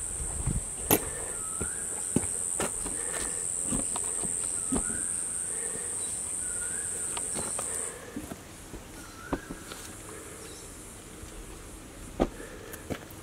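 A steady high-pitched insect buzz that cuts off suddenly about eight seconds in. Under it a bird repeats a short rising call about every second and a half, with scattered light clicks and knocks.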